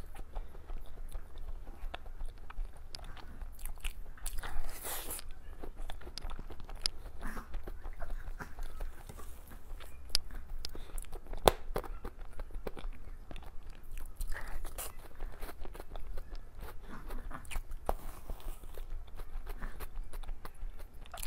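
Close-miked eating sounds: a person biting and chewing cake, with many short wet mouth clicks and a few louder bites, one about four and a half seconds in and one a little past halfway. A steady low hum runs underneath.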